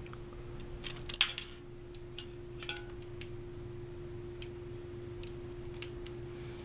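Scattered small clicks and taps of tools and bike parts being handled, with a brief cluster of sharper clicks about a second in, over a steady low hum.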